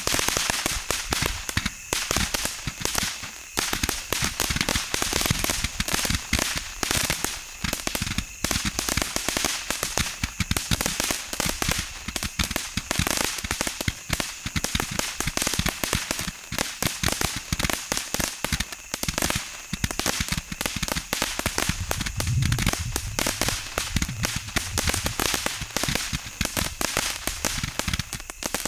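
Cutting Edge 'Machine Gun' 200-shot Roman candle firing: a rapid, near-continuous stream of sharp pops, many a second, with only a few brief lulls.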